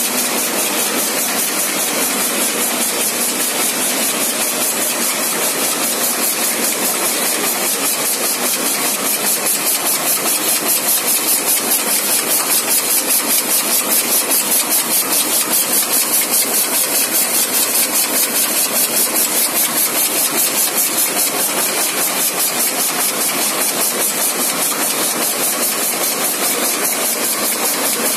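Rotary plastic bottle-cap compression machine running steadily, a continuous mechanical noise with a fast, even pulsing and a strong hiss.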